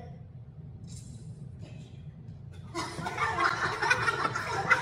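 Women laughing and chattering, breaking out about three seconds in after a quieter stretch.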